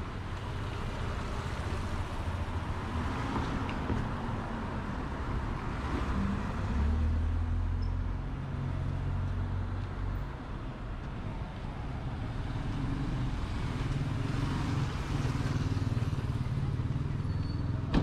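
Street traffic: car engines running with a low steady rumble, swelling twice as vehicles pass.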